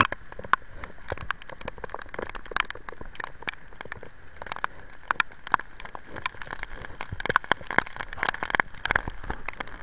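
Rain falling at sea: a steady hiss with many sharp, irregular ticks of single drops striking close by.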